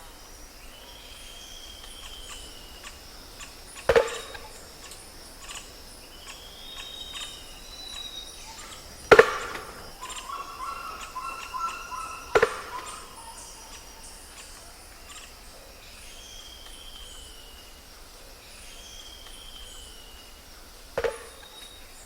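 Forest ambience: a steady high insect hum with a bird giving short arching whistles every few seconds. Four sharp knocks stand out, the loudest sounds, spread a few seconds apart.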